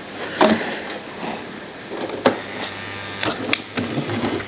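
A model train running on the layout's track: irregular sharp clicks and light knocks, the sharpest about two seconds in and a quick run of them near the end.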